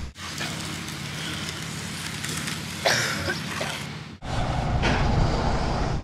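Concrete mixer truck's diesel engine running steadily under a hiss of outdoor noise; the sound changes abruptly about four seconds in.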